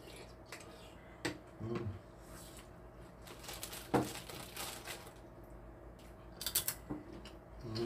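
Eating sounds at a table: chopsticks and spoons clicking against ceramic bowls, with a plastic bag crinkling around the middle and a sharp knock about four seconds in.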